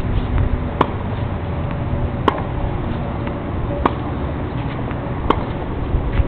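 Tennis balls struck by rackets in a rally: four sharp pops about a second and a half apart.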